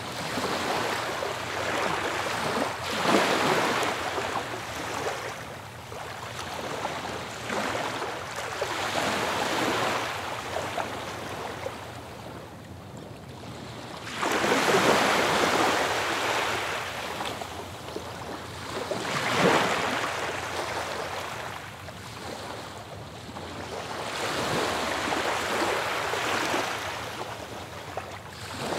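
Ocean surf on a beach: waves washing in and drawing back, the sound rising and falling every few seconds, with the biggest surge about halfway through.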